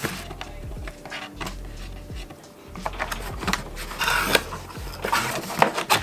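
Cardboard packaging being opened by hand: scattered taps and knocks with scraping and rustling as the lid and flaps are lifted, the loudest scrape about four seconds in.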